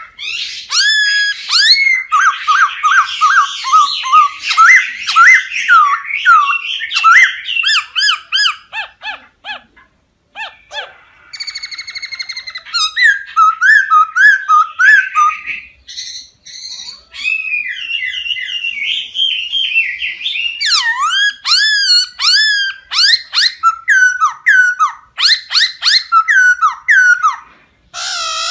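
Laughingthrush singing a loud, varied song of rapid whistled notes, many sweeping sharply downward, delivered in long runs with brief pauses between phrases.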